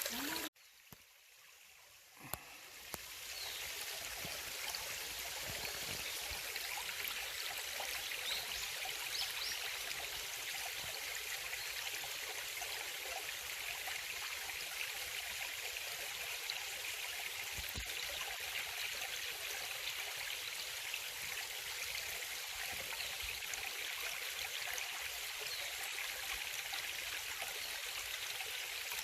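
Mountain valley stream running full after heavy rain: a steady rush of water. The sound cuts out sharply about half a second in and fades back up over the next two seconds or so.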